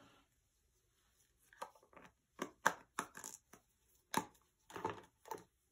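Plastic paint cups and bottles being handled on a work table: a quick, uneven series of short knocks and clatters starting about a second and a half in, loudest in the middle.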